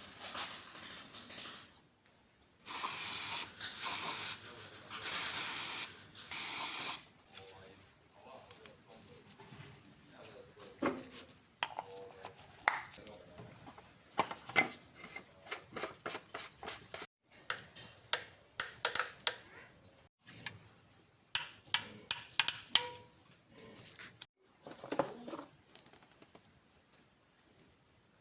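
Four hissing spray bursts of about a second each, typical of an aerosol cleaner or compressed air during car servicing, followed by a long run of sharp clicks and knocks from tools and parts being handled.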